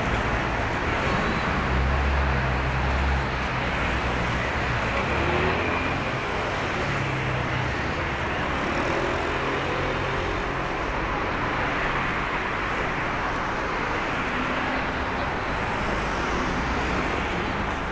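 City road traffic: a steady wash of tyre and engine noise, with a vehicle's low engine hum loudest about two to three seconds in.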